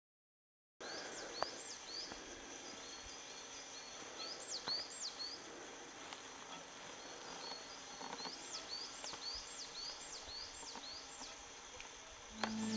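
A small bird calling over a faint forest background. Its sharp whistled notes each rise and drop back, and come in short runs: about three, then two, then a longer run of about seven past the middle. The first second is silent.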